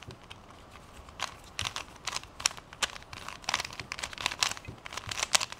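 A plastic geocube, a shape-mod twisty puzzle, being turned by hand: irregular plastic clicks and clacks as its layers are twisted.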